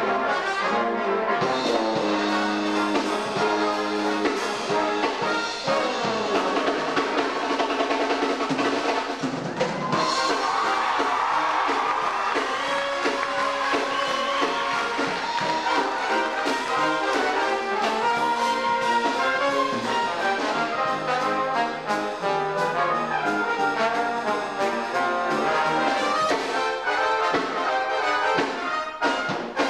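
Brass ensemble with trombone and trumpets playing a piece, backed by a drum kit.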